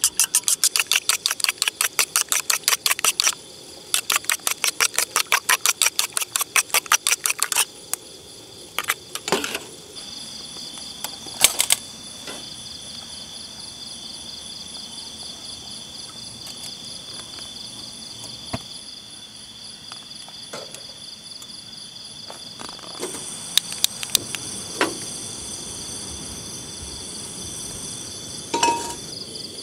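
A fork or chopsticks beating egg in a small stainless-steel bowl: rapid metal clinking at about six strokes a second, pausing briefly, then stopping about seven seconds in. After that a steady high chorus of night insects, with a few light knocks and clinks of camp cookware.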